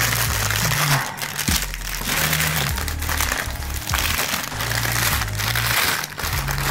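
Clear plastic film (cellophane) crinkling as a chicken roll is rolled up tightly in it by hand, over background music with a low bass line.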